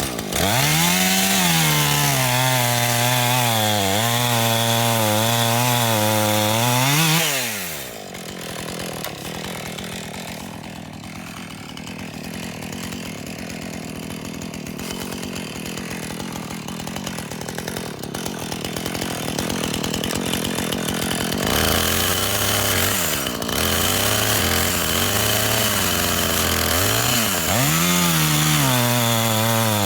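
Husqvarna 450 Rancher two-stroke chainsaw revving to full throttle, its pitch wavering and dipping as it cuts wood, then dropping off sharply after about seven seconds. After a quieter stretch the saw idles with a few short blips of the throttle and revs up again near the end.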